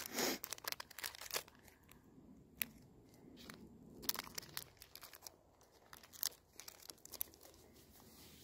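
Crinkling of a Larabar's plastic wrapper being handled: a quick run of crackles in the first two seconds, then scattered single crackles.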